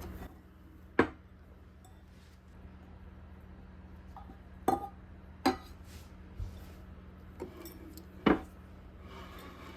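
Kitchen dishes and utensils clinking as they are handled, with four sharp knocks: one about a second in, two close together in the middle and one near the end, over a low steady hum.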